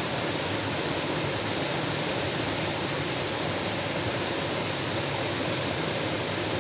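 Steady rush of a shallow rocky stream spilling over small cascades, an even unbroken water noise.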